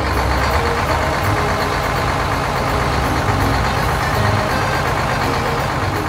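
Heavy truck engine running steadily as the truck drives along, over faint background music.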